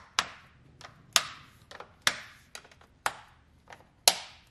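Plastic air box lid clips on a Yamaha Drive 2 golf cart snapping shut one after another as the air filter lid is pressed down. Five sharp snaps about a second apart, each with a short ringing tail, and lighter clicks between them.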